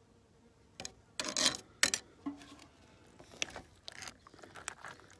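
A knife and gloved hands handling a gurnard on a cutting board. A few short loud scrapes and knocks come about a second in, then lighter clicks and rustles as the knife opens the fish's belly.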